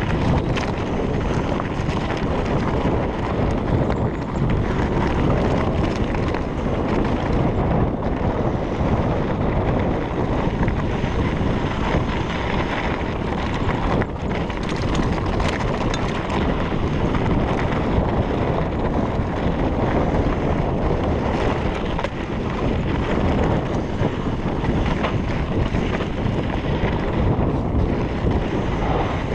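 Wind rushing over the microphone of a camera on a mountain bike descending a rough downhill trail, with the steady rumble of the tyres and frame over dirt and rock and a few light knocks.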